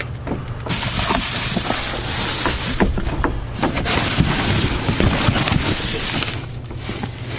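Plastic trash bags and cardboard boxes rustling and crinkling close to the microphone as they are shifted about, with small crackles, over a steady low hum.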